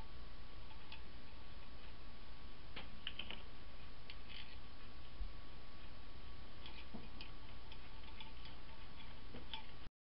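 Faint, irregular light clicks of small metal parts being handled and fitted together by hand, over a steady hiss.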